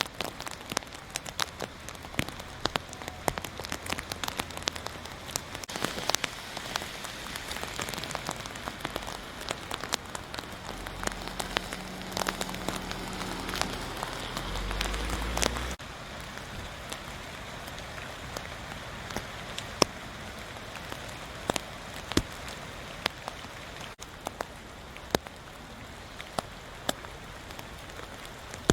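Steady rain falling, with many sharp individual drops. A low hum joins about ten seconds in and cuts off suddenly a few seconds later.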